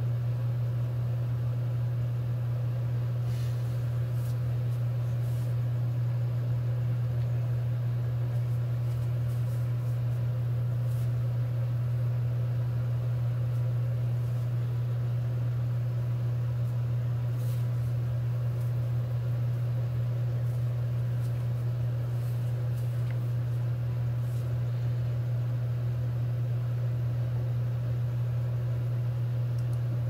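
A steady low hum that holds the same pitch and level throughout, with faint scattered clicks above it.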